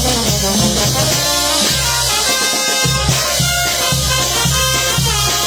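Peruvian banda show ensemble playing an instrumental passage with no singing: a pulsing bass line under held brass-like notes and percussion. The bass drops out briefly about two seconds in, then comes back.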